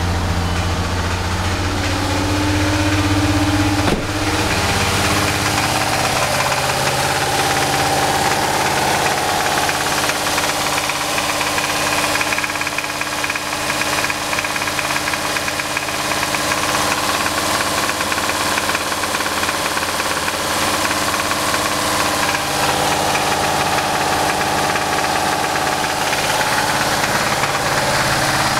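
Turbocharged VW VR6 engine running steadily with a knock that the owner takes for rod knock. A short click comes about four seconds in, where the low hum changes.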